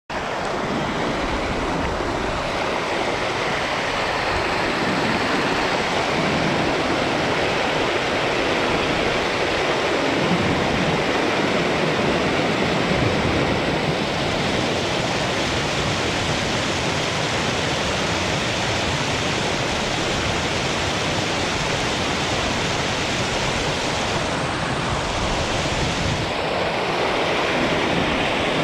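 River water rushing steadily, a continuous even roar of fast-flowing current.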